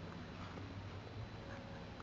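Pug puppies moving about, with a few faint small ticks and rustles over a low steady hum.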